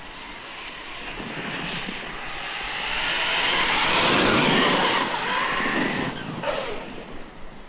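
Losi Tenacity MT 1/10 scale RC monster truck making a speed pass: its electric motor whine and tyre noise grow louder as it approaches, are loudest about four and a half seconds in, then drop in pitch and fade as it goes by.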